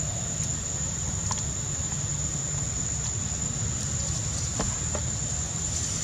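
Outdoor ambience: a steady low rumble, with a continuous high-pitched whine above it and a few faint clicks about a second in and again near the end.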